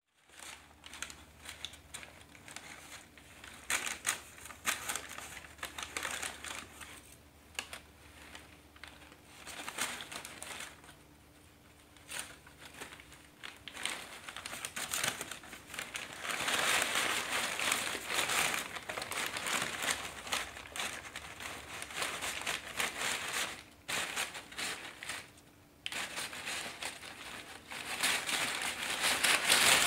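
Crumpled kraft and green packing paper rustling and crinkling inside a cardboard box as a cat paws and scrapes at it in a burying motion. It comes in bouts with a few short pauses and is loudest through the middle and near the end.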